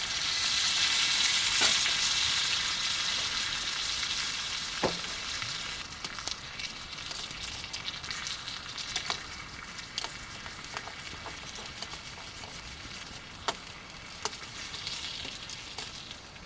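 Food sizzling in a frying pan over a wood fire, loud for the first few seconds and then settling to a quieter sizzle, with scattered sharp clicks.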